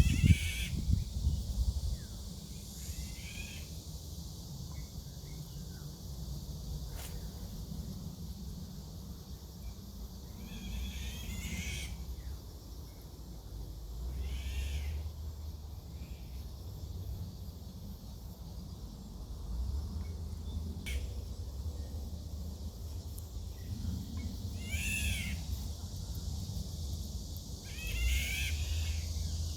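A bird giving a cat-like mewing call, repeated every few seconds, each call a short falling mew, over a steady low rumble.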